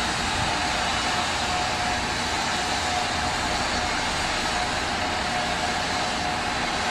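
Steady, unchanging rumble and rushing noise, with a faint constant hum.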